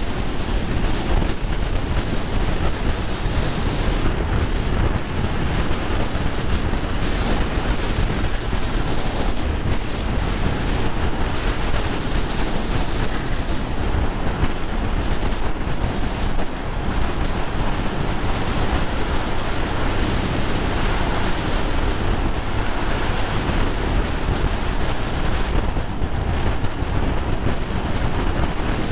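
Heavy wind noise buffeting the microphone of a motorcycle riding at road speed, a steady low rush with nothing standing out above it.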